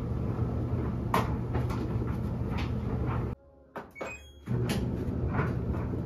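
LG front-load laundry machine running: a steady hum and rumble with light clicks about twice a second. About a third of the way in it cuts out suddenly for about a second, leaving only a few faint short electronic beeps, then resumes.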